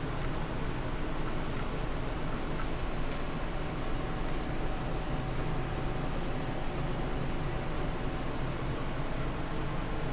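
Insect chirping: short high chirps, about one or two a second, unevenly spaced and varying in strength, over a steady low hum.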